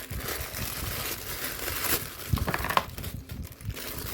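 Plastic blind-bag packaging crinkling and rustling as it is handled and unwrapped, with a few sharper crackles about two and a half seconds in.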